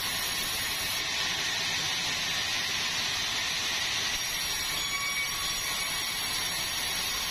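Sawmill machinery running with a steady, even hiss.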